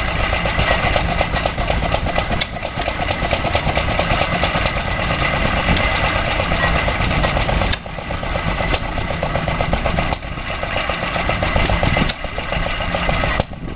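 Small stationary hit-and-miss engine running and driving a pump jack, a steady rapid chugging with a few brief dips in loudness near the end.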